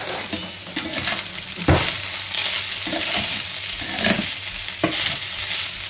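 Plant-based mince with onions and peppers sizzling in a frying pan while a spatula stirs and scrapes through it, with two sharper knocks of the spatula against the pan.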